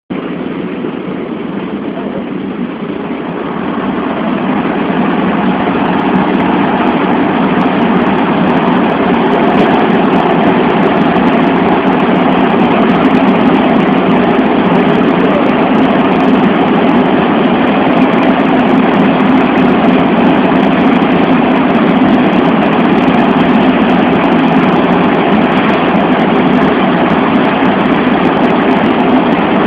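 Steady engine and airflow noise from a Boeing C-17 Globemaster III's four Pratt & Whitney F117 turbofans, heard inside the cargo hold. It grows louder over the first few seconds, then holds level.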